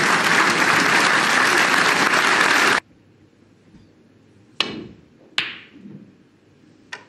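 Audience applause that cuts off abruptly a little before halfway. Then come three sharp clicks of snooker balls: the cue striking the cue ball and balls colliding, the last one fainter.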